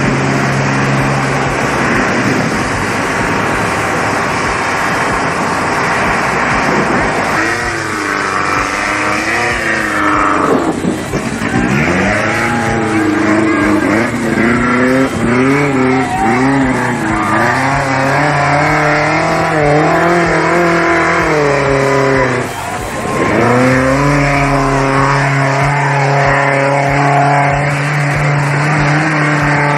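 Off-road race vehicle engine running loud and steady, then revving up and down over and over for about fifteen seconds, dropping briefly, then holding a steady high pitch again.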